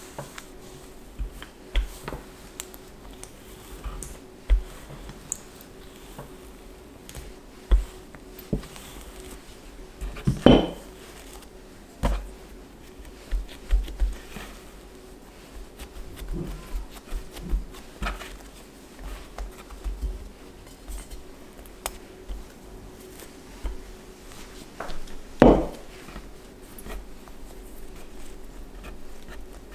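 Bread dough being worked on a floured wooden board: a wooden rolling pin rolling over it, then hands pressing, folding and rolling up the dough. Scattered soft taps and knocks run throughout, with two louder thumps about ten and twenty-five seconds in.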